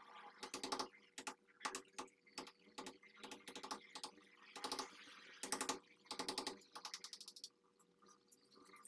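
Irregular short bursts of clicking and scraping from hand tools working at a wall-mounted electrical switch or socket box, where render concrete has blocked the box and its screw holes. A faint steady hum runs underneath.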